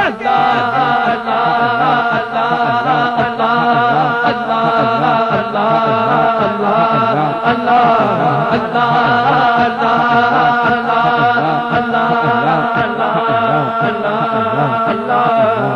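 Devotional group chanting in a steady rhythm, men's voices through a PA, over sustained held tones that run unbroken beneath.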